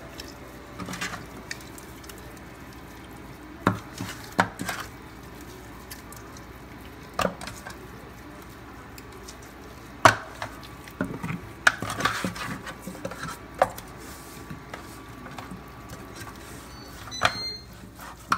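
Raw seasoned rib pieces being rubbed by hand and shifted about in a stainless steel sink: soft rubbing and handling noise with scattered irregular knocks and clunks of meat and hands against the metal basin, and a sharper metallic clink near the end.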